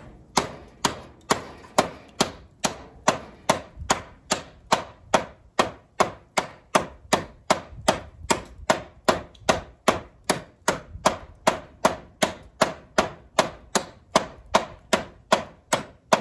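Thick-bladed Work Tuff Nomad fixed-blade field knife chopping into the edge of a wooden door. It strikes in a steady rhythm of about two chops a second, each a sharp knock as the blade bites into the wood.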